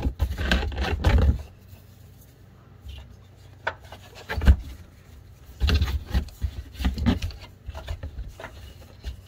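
Rubber V-ribbed serpentine belt being pulled and worked off its pulleys by hand, rubbing and scraping against the pulleys and engine parts. A burst of rubbing at the start, two sharp knocks in the middle, then more short rubbing strokes.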